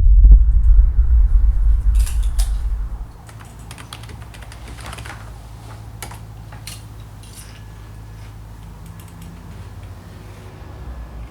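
A loud, deep rumble that cuts off about three seconds in, followed by scattered light clicks and taps over a faint low hum.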